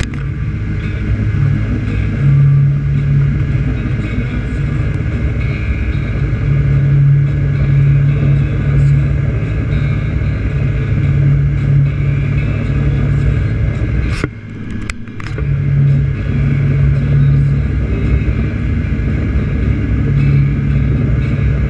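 A motorboat's engine running steadily while the boat is under way, a low hum that swells and eases every few seconds over the rush of water and wind. About fourteen seconds in the sound briefly drops, with a couple of sharp clicks.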